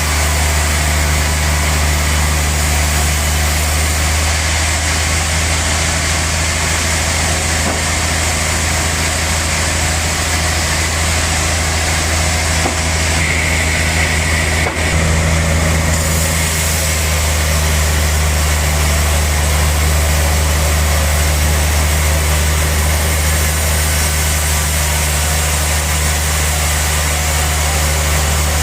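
Sawmill machinery running steadily: a constant low machine hum with a steady hiss above it.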